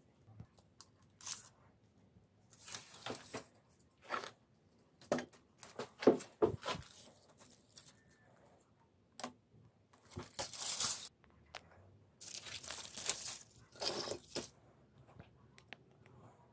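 Irregular handling noises: a series of tearing and crinkling rustles, each up to about a second long, mixed with a few sharp clicks and knocks.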